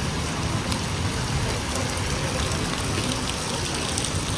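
Steady heavy rain falling, an even hiss with a few faint ticks of drops, over a low rumble.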